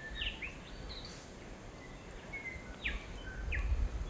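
Quiet forest ambience with a few scattered short bird chirps. A low rumble builds near the end.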